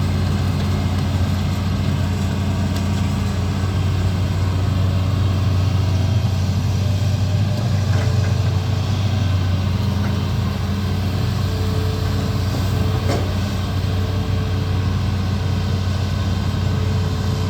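Amphibious excavator's diesel engine running steadily with a low, even hum.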